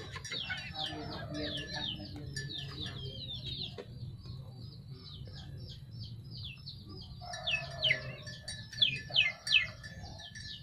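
Birds chirping continuously: a rapid string of short, high, falling peeps, several a second, growing louder in the last few seconds, over a low steady hum.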